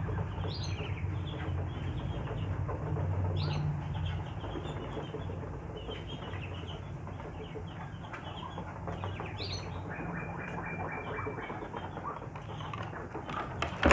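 Muscovy ducks feeding greedily from a basin, their bills pecking and clattering in the feed in many quick clicks, with a few short chirping calls from the poultry. A steady low hum runs underneath.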